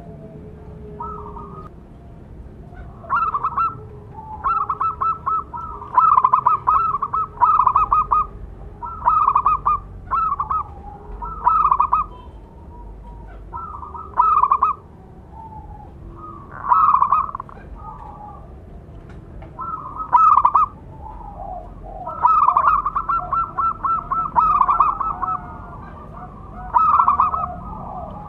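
Zebra dove (perkutut) calling: repeated bouts of rapid, staccato trilled coos, each under a second long, coming every second or two.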